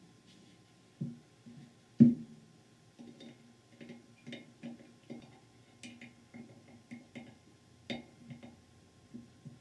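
Light metal clicks and taps of needle-nose pliers working inside the bore of an aluminum transmission accumulator body casting, about twice a second, with a sharper knock about two seconds in as the casting is handled on the bench.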